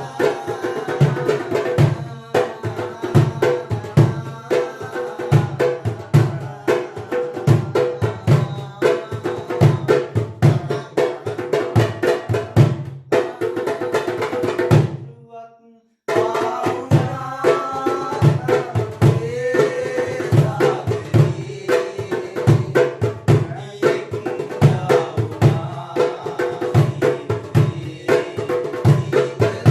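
Darabuka hand drum played in a steady rhythm along with a song's melody and backing music. About fifteen seconds in the sound fades out and drops to silence for about a second, then the music and drumming start again.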